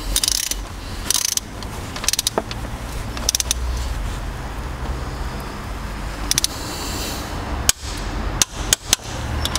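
Torque wrench on the cylinder head bolts of a BMW M57 diesel engine: short runs of ratchet clicks and single sharp metallic clicks as each bolt is pulled up to torque, over a low steady hum.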